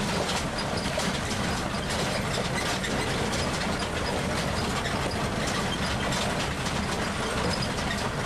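Tour tram's engine running steadily as it drives along, with light rattling and clicking from the vehicle.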